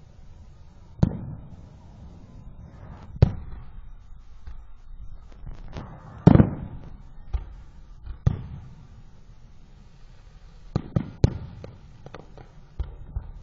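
Fireworks going off: a string of sharp bangs with echoing tails, the loudest about six seconds in, and a quick run of three bangs near the end.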